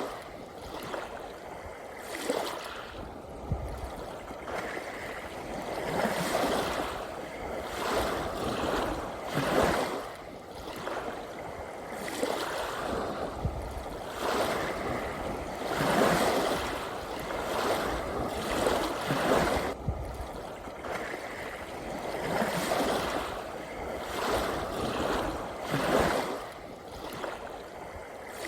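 Small ocean waves washing and lapping in a steady wash of water noise, swelling and falling back every few seconds.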